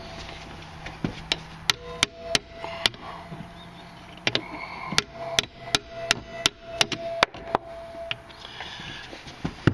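Hammer blows on a socket, driving a new snap ring onto a snowmobile electric starter's pinion shaft: a long, irregular series of sharp metallic strikes, several leaving a brief ringing tone. The ring is not yet going on; the blows are not landing squarely because the hands and socket are oily.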